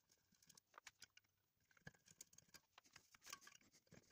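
Near silence with a few faint clicks and taps, as hands grip and work at the plastic fan cover on the back of a wood lathe's electric motor.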